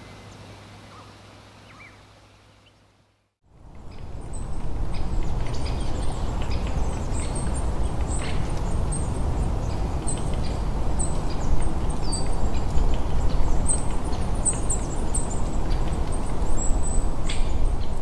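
Songbirds chirping with many short, high calls over a steady rushing outdoor noise. The first few seconds are quieter and fade out, then a louder passage of rushing noise and birdsong begins.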